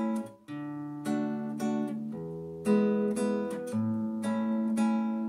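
Nylon-string classical guitar played fingerstyle in a slow waltz rhythm in 3/4: a thumbed bass note followed by two plucked three-note chords, about two strokes a second. The bass note changes from bar to bar.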